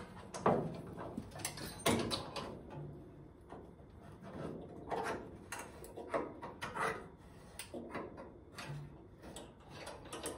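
Screw clamps being cranked tight on a 1970 Ford Mustang's rear frame rail, with the unibody sheet metal creaking in short, irregular bursts as the body shifts back into line with the rail.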